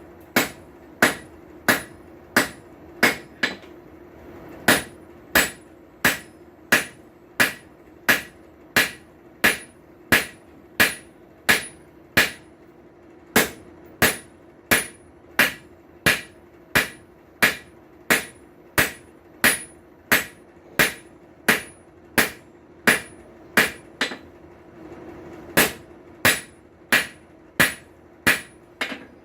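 Blacksmith's hand hammer striking hot steel on an anvil in a steady rhythm, about three blows every two seconds, each blow with a bright ring, while forging a tong blank. The hammering breaks off briefly about four seconds in and again near twenty-four seconds. A steady low hum runs underneath.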